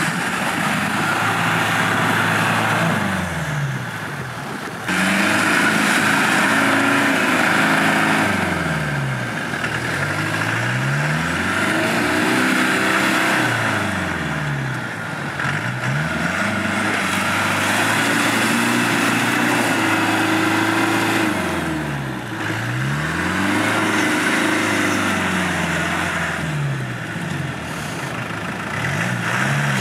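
Land Rover Defender engine revving up and down over and over: its pitch falls, then climbs again every few seconds, over a steady rushing noise. There is a sudden jump in loudness about five seconds in.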